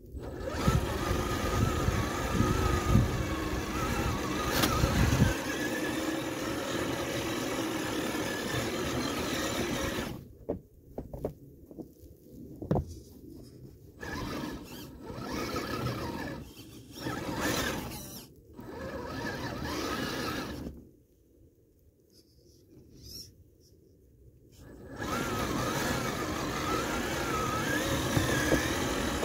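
Redcat Gen8 Scout RC crawler's electric motor and gear drive whining as it drives and pushes snow with its plow, with low thumps in the first few seconds. It runs steadily for about ten seconds, then in short stop-start bursts, goes quiet for a few seconds, and runs steadily again near the end.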